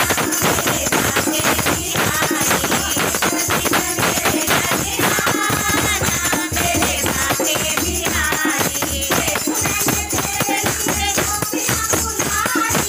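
A group singing a Hindu devotional kirtan song, accompanied by jingling hand percussion that keeps a steady beat.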